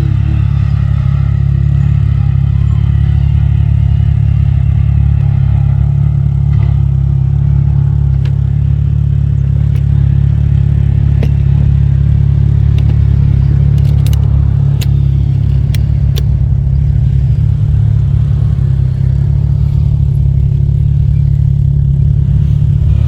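ATV engine running steadily, with a few sharp clicks or rattles about two-thirds of the way through.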